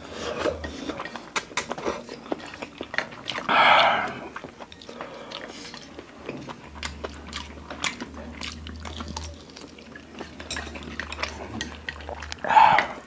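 Close-miked eating sounds of spicy instant noodles: wet chewing, lip smacks and slurping, with small clicks of chopsticks on dishes. Two louder, short noisy bursts stand out, about three and a half seconds in and near the end.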